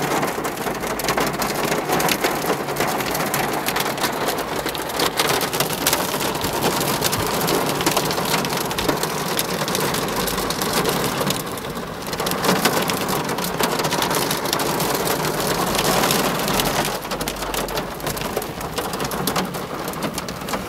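Heavy hail and rain pelting a car's roof and windows, heard from inside the cabin: a dense, unbroken clatter of countless small impacts, easing briefly about halfway through.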